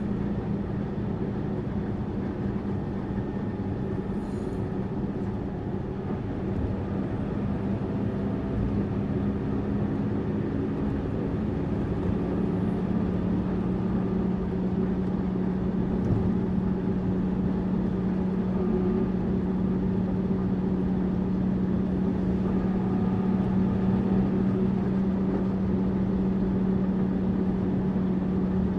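Tourist bus running along the road: a steady engine drone with road noise. The low hum drops slightly in pitch and grows a little louder about eleven seconds in.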